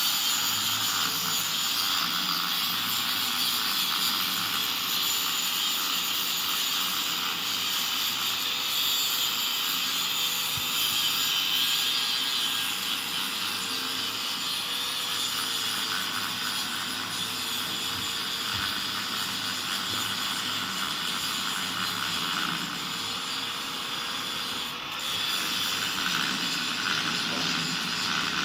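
Steady, loud hissing noise, with a brief dip near the end.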